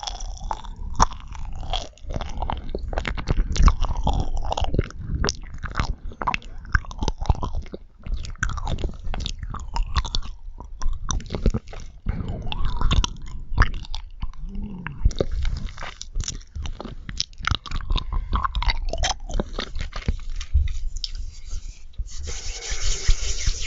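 Close-miked chewing of marshmallows: wet, sticky mouth sounds with many small clicks and smacks throughout. Near the end a breathy hiss takes over.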